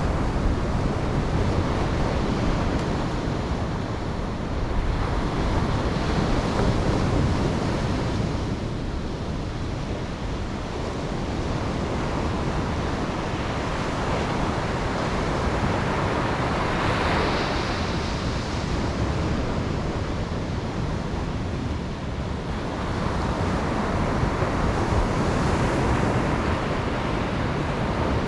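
Ocean waves breaking and washing on a beach, the surf swelling and easing every few seconds, with wind noise on the microphone.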